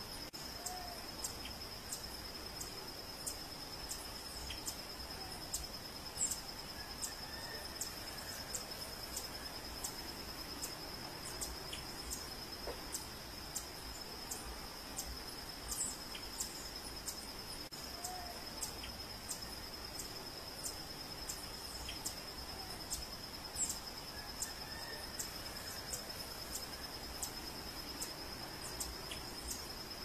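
Tropical forest ambience: insects keep up a steady, high, unbroken drone, with a regular ticking about twice a second. A few short, high bird chirps and faint calls come and go.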